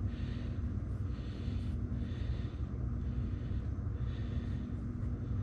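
Steady low background rumble, with a person breathing close to the microphone in soft breaths about once a second.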